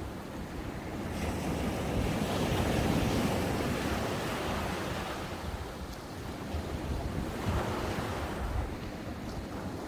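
Ocean waves breaking and washing up on a sandy beach, the surf swelling louder about a third of the way in and again near the end, with wind buffeting the microphone.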